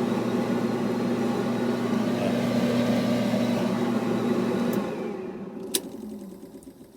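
Whirlpool clothes dryer's motor and drum running with a steady hum, then winding down to quiet over the last two seconds, with one sharp click during the run-down.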